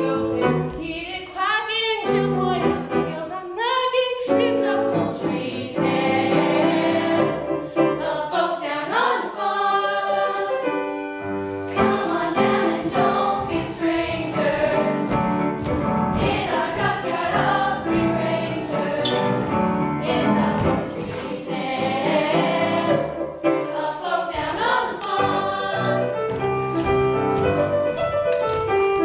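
A choir of voices singing a song with musical accompaniment.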